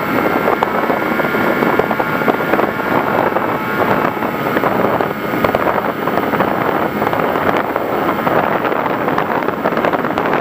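FPV Raptor model plane in flight: its electric motor and propeller run steadily with a faint whine, buried in heavy wind rush and crackle.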